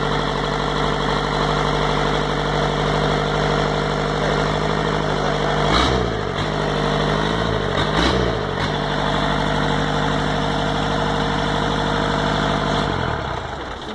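Yanmar four-cylinder diesel engine idling steadily. It is revved briefly twice at the injection pump's throttle lever, about six and eight seconds in, each time rising and falling back to idle. Near the end it is shut off and winds down to a stop.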